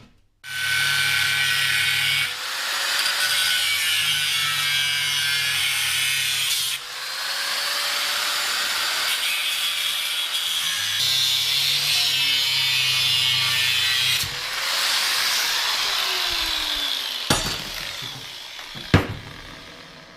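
Handheld power tool cutting through a steel car subframe: a steady hissing cut with a motor hum that shifts a few times as the load changes, then the tool spins down about three-quarters of the way through. Two sharp knocks near the end.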